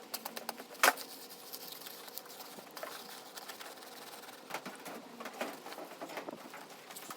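Digging in stony soil: irregular scrapes and clinks of stones against a digging tool, the sharpest knock about a second in.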